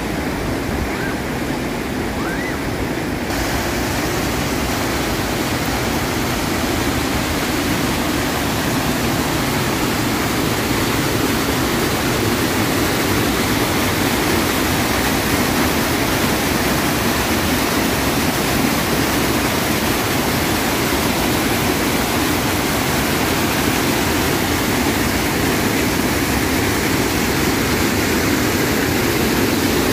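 Floodwater pouring over a dam spillway and crashing down over rocks: a steady, loud rush of water that gets fuller and brighter a few seconds in.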